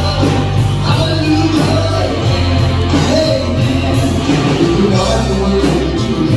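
Live band playing a rock-style worship song with no lead vocal line: bass and drums under a steady, regular cymbal beat.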